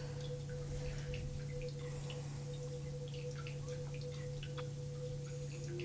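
Soft ambient background music: a single held pure tone that steps down to a lower note near the end, over a steady low hum.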